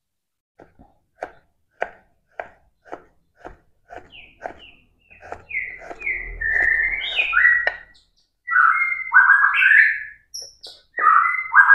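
Kitchen knife slicing a block of cheese on a wooden cutting board, knocking on the board about twice a second. From about four seconds in, a bird chirps in a run of short falling calls that grow louder toward the end and drown out the knife.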